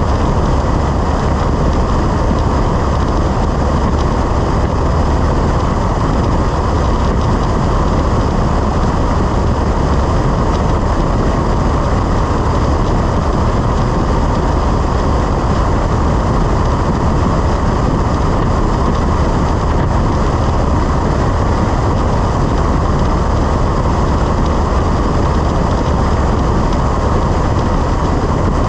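Cessna 172's engine and propeller running steadily in flight, a constant drone with airflow noise.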